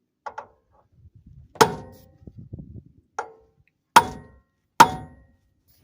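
Hammer blows on a steel hub-puller tool threaded onto a Cushman's rear axle end, driving the rear hub and brake drum off the axle. Two light taps, then four hard ringing metal strikes, the second of them lighter.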